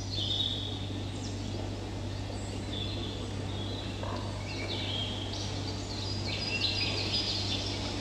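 Birdsong: many short chirps and whistled calls, a recording played over the hall's sound system, over a steady low electrical hum.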